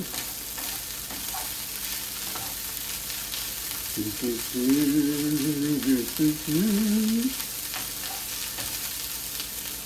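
Turmeric fried rice with smoked salmon sizzling steadily in a hot pan while it is stirred. About four seconds in, a man's voice hums a short tune for about three seconds.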